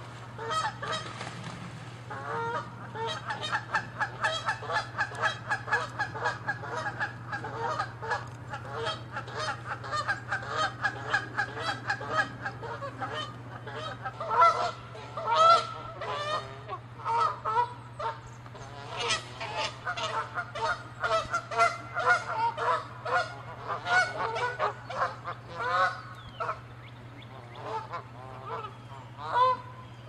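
Canada geese honking: a fast, unbroken run of many honks a second for about ten seconds, then looser bursts of honks that thin out toward the end. This is the agitated honking of geese fighting and chasing one another over territory.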